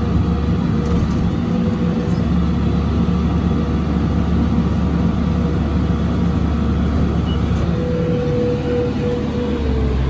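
New Holland T5060 tractor running steadily, pulling and driving a New Holland BR7060 round baler while it bales hay: a constant low drone with a steady whine on top.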